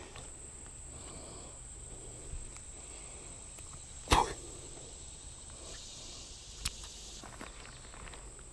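Fishing tackle handled while lures are swapped: a few sharp clicks, the loudest about halfway through and a smaller one a couple of seconds later. A faint steady high-pitched tone runs underneath.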